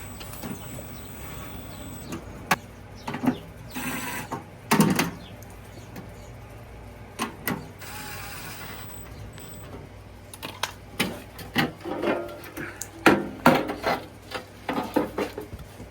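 Metal clinks, knocks and short scrapes of hand tools and sheet-metal blower parts as the blower motor is fastened back in place with a seven-sixteenths wrench, in irregular clusters.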